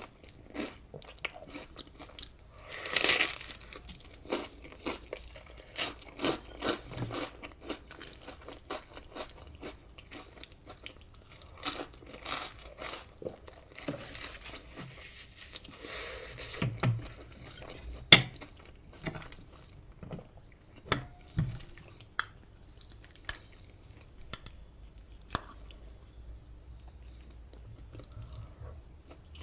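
Close-miked chewing and eating of a fried English breakfast: irregular wet mouth clicks, smacks and crunches, with a louder crunching bite about three seconds in and a sharp click around eighteen seconds.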